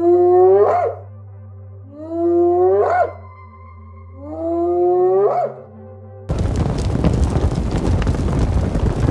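An animal call repeated three times, each about a second long, held on one pitch and then sweeping sharply upward at the end, over a low steady music drone. About six seconds in, it cuts abruptly to a loud, steady rushing noise like wind.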